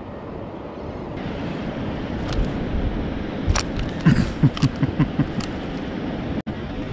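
Steady wind and water noise on a fishing kayak, with a few sharp clicks and knocks from handling on board and a quick run of short low thumps about four seconds in.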